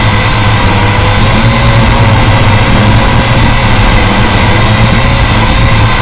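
Propel Altitude 2.0 quadcopter's electric motors and propellers whining steadily in flight, heard up close from on board, the pitch wavering slightly.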